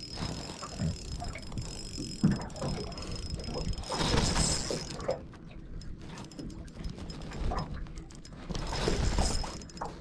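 Small spinning reel and rod being worked while a hooked fish is played on light line: irregular mechanical clicking and rubbing, with two swells of rushing noise, one around the middle and one near the end.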